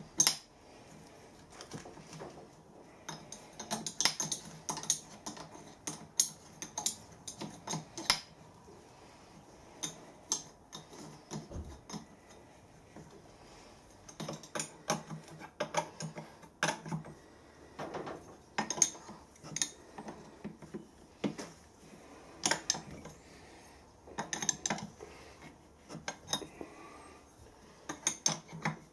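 Small metal engine parts clinking and clicking against each other and the cast-iron frame as they are fitted by hand, in irregular clusters of light knocks; a spanner clinks on a nut near the end.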